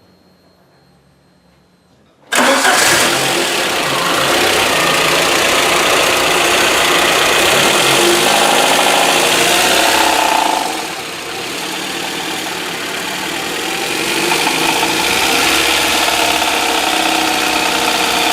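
VAZ-2110 8-valve engine starting about two seconds in and then running with a knock. The mechanic attributes the knock to a loosened bolt on the drive pulley that turns the alternator belt. The engine note drops a little about halfway through, then slowly builds again.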